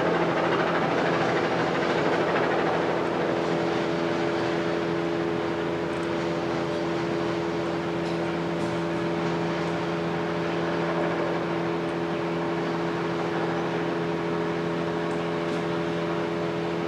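Steady mechanical drone from idling machinery: several held hum tones over a low, even rumble, slightly louder in the first few seconds.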